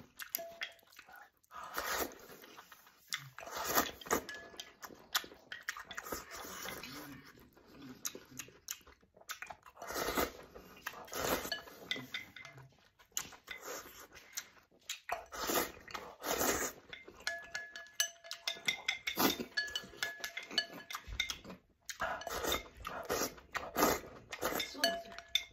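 A person slurping noodles and sauce from a ceramic bowl and chewing, in repeated wet bursts, with chopsticks knocking and scraping against the bowl.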